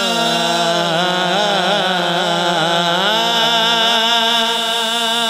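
A man singing an Urdu naat into a microphone, a long melismatic passage without clear words: a held note slides down in pitch at the start, then the voice winds up and down.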